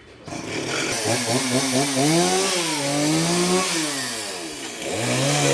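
Chainsaw engine revving, its pitch rising and falling several times as the throttle is opened and eased off.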